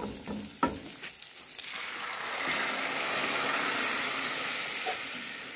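A few clicks of a wooden spatula stirring dry toasted rice in a pan. Then chicken cooking juice is poured into the hot pan of rice and onion and hisses steadily as it hits the hot metal.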